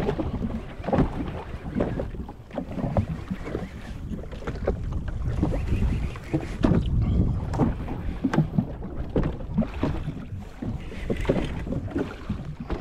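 Small waves slapping and splashing against the hull of a drifting jet ski, with wind buffeting the microphone in uneven gusts.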